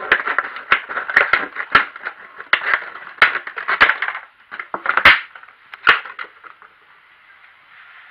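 Thin plastic water bottle crinkling and crackling as it is gripped and handled: a dense run of crackles for about four seconds, then a few separate sharp cracks.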